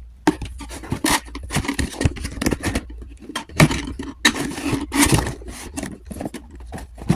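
Vacuum cleaner's plastic housing and new dust bag being handled during a bag change: irregular scrapes, rustles and clicks.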